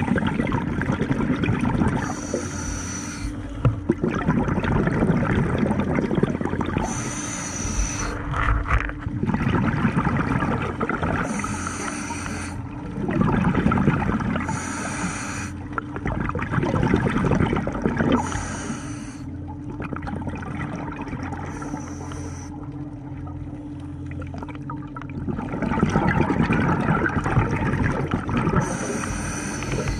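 Scuba diver breathing through a regulator underwater. Each breath is a short hissing inhale followed by a longer burble of exhaled bubbles, about every four seconds.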